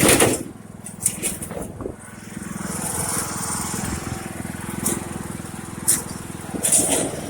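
Small engine of a riding lawn mower running steadily, getting louder a few seconds in, with knocks and clatter at the start and near the end.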